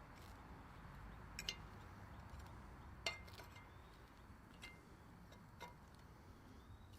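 A few faint, light metallic clinks, one about three seconds in with a short ring, over a low steady background.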